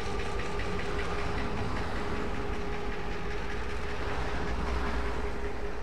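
Diesel locomotive running as it rolls slowly along the track: a steady low engine drone with a constant whine above it.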